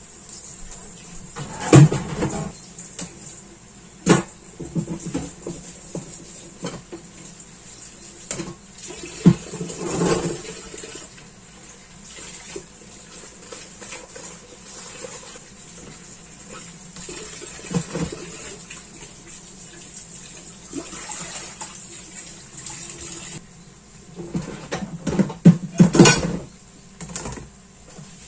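Tap water running into a kitchen sink, with knocks and clatter of dishes and kitchen things being handled; the water stops about three-quarters of the way through, followed by a burst of clatter.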